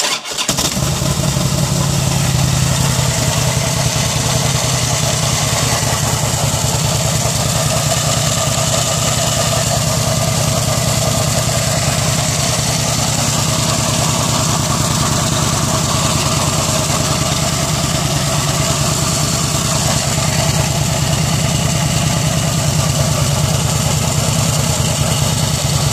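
Harley-Davidson Fat Boy V-twin starting up abruptly and settling into a steady idle, with regular firing pulses. The owner is showing a noise from the primary drive.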